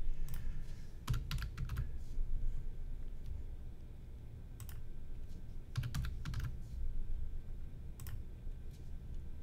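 Typing on a computer keyboard: short runs of keystrokes with pauses between them, over a low steady hum.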